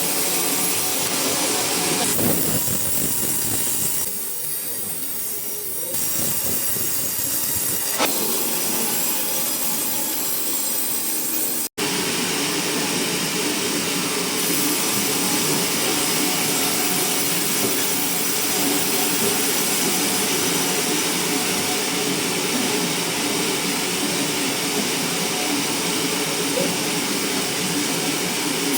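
Sawmill running loud and steady, its saw cutting through coconut wood. The sound drops out for an instant about twelve seconds in.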